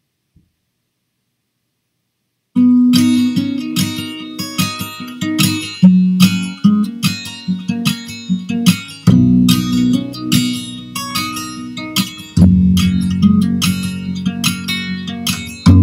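Music track starting suddenly about two and a half seconds in after a near-silent gap: guitar, plucked and strummed.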